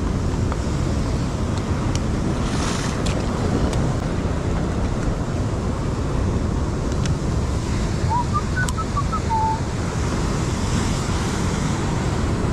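Sea surf breaking and washing over rocks, with wind buffeting the microphone as a steady rumble.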